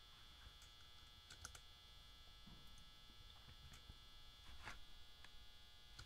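Near silence with a few faint clicks and taps of a knob and small parts being handled on a Line 6 HX Stomp, over a faint steady hum.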